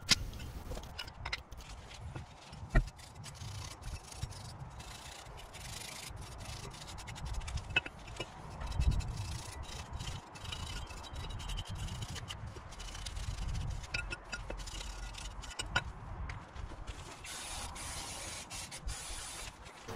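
Steel brake pad carrier and brake pads being handled and worked by hand. Faint rubbing and scraping of metal parts, with a few sharp clicks scattered through.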